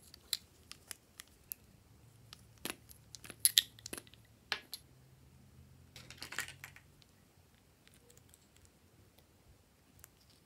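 Plastic lipstick tubes clicking and tapping as they are handled and uncapped: a run of sharp separate clicks, the loudest about three and a half seconds in, then a brief crackly patch of small clicks about six seconds in.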